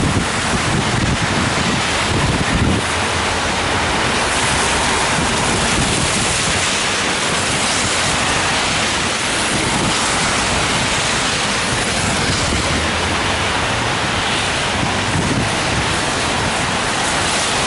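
Steady hiss of rain on an umbrella held just overhead, mixed with the hiss of car tyres on a busy wet road.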